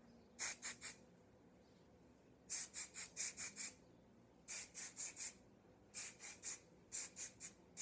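Aerosol can of Aveda Air Control hairspray giving quick short hissing spurts, about five rapid clusters of three to six spurts each, as it is sprayed over the hair.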